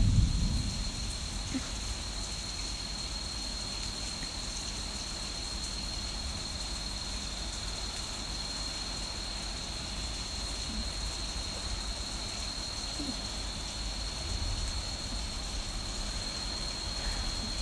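Heavy rain falling steadily during a thunderstorm, with a short low rumble of thunder at the start and a softer low rumble near the end. A faint steady high whine runs underneath.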